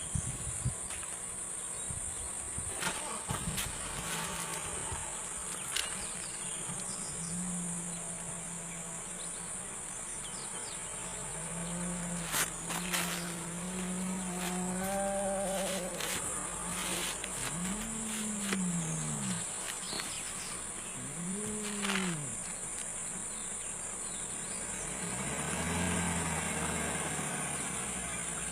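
Spotted hyena giving low, drawn-out whooping calls: held low notes first, then two separate calls that rise and fall in pitch, and a fainter one near the end. A steady chorus of crickets shrills behind them.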